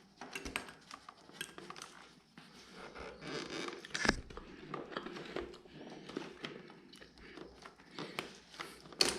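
Yamaha R1 RN12 clutch cable being pulled free and worked around the motorcycle: scattered light clicks and rustling, with a sharper knock about four seconds in and another near the end.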